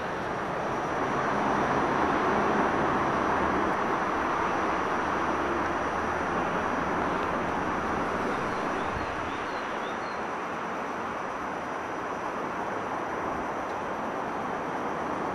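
Steady outdoor background noise with a faint low hum, and a few faint high chirps about nine seconds in.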